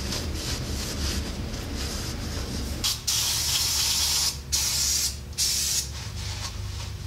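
Aerosol spray can hissing in three bursts, the first the longest, starting about three seconds in and ending about a second before the end. Spray cleaner is being blasted into a truck's steer-axle kingpin eye to clean it.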